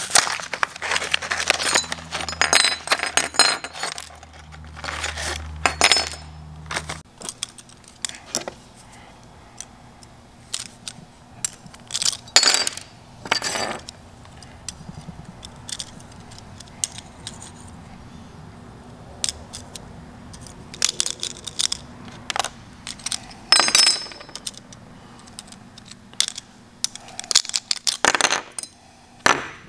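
Metal clinks, taps and rattles as new honing stones and their small pins are handled and fitted onto a spring-loaded three-stone cylinder hone on a wooden bench, with packaging rustle in the first few seconds.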